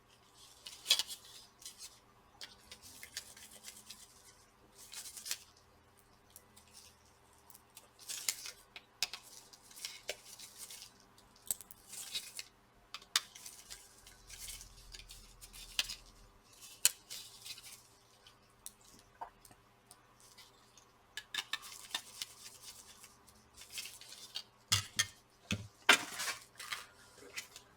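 Small metal tools and laptop parts being handled: irregular clicks, taps and short scrapes as a screwdriver and the heatsink assembly are worked on, with a few louder knocks near the end.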